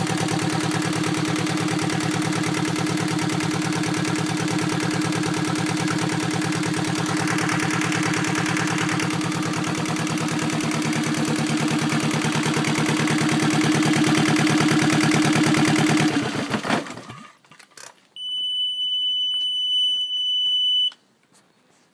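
Yanmar 2GM two-cylinder marine diesel running steadily on a test stand, then shut down about 16 seconds in and dying away within a second. About a second and a half later the engine panel's warning buzzer gives one steady high tone for about three seconds and cuts off. This is the alarm that sounds with the key on and the engine stopped.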